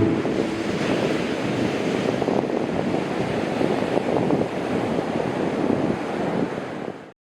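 Ocean surf washing and breaking, with wind buffeting the microphone; the sound cuts off suddenly near the end.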